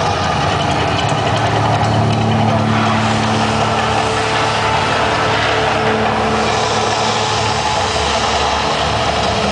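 The Mirage volcano show erupting: a loud, steady deep rumble with flames shooting up, and no break or single bang standing out.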